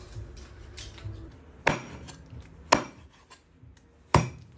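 A cleaver chopping a raw chicken into pieces on a wooden cutting board: three hard chops about a second apart, with a few lighter knocks before them.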